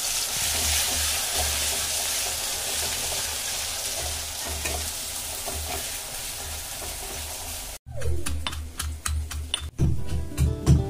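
Sliced onions frying in hot oil in an aluminium kadai, a steady sizzle with the scrape of a steel spatula stirring them as they are browned. The sizzle cuts off abruptly about eight seconds in, followed by a run of sharp clicks and knocks.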